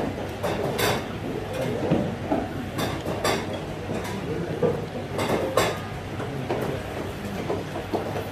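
Chopsticks and ceramic tableware clinking several times at a meal, over a low murmur of voices and room hum.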